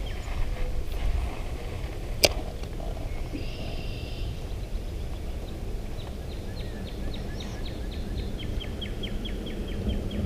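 Small birds chirping over a low steady rumble, with a quick run of short high chirps, a few a second, through the second half. A sharp click sounds about two seconds in.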